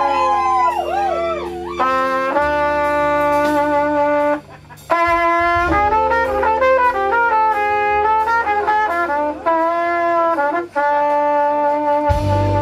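Live soul-blues band in an instrumental passage: a trumpet plays held notes and short runs over sustained keyboard chords, with bass and drums. The band stops for about half a second near the middle, and a heavy low bass comes back in near the end.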